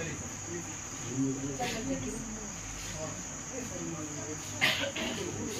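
Indistinct voices talking faintly in the background over a steady high-pitched tone, with a brief louder sound about four and a half seconds in.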